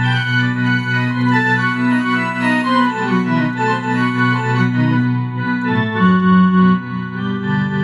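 Electronic keyboard played with an organ-like sound: a moving melody over held low chord notes, the bass shifting to a new chord about three-quarters of the way through.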